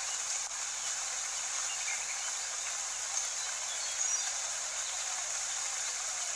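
Steady hiss of rain, the rain soundtrack laid under the study session, with a few faint short high sounds about two, three and four seconds in.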